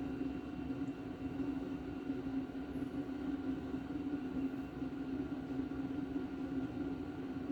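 A steady machine hum with a few faint held tones above it, unchanging throughout.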